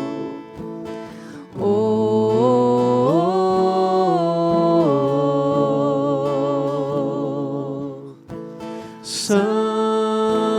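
Catholic worship song: a voice holding long notes with vibrato over acoustic guitar, the melody stepping up a few seconds in and back down, with a short breath near the end.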